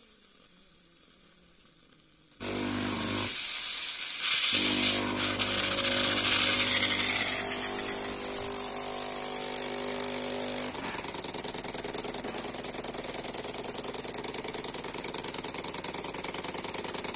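De'Longhi ESAM 2200 bean-to-cup coffee machine running: its grinder starts about two seconds in, and after about ten seconds it changes to the fast, even buzz of the vibratory water pump. This is the machine's fault of pumping water after milling since the pump was replaced, which leaves it reporting an empty water tank.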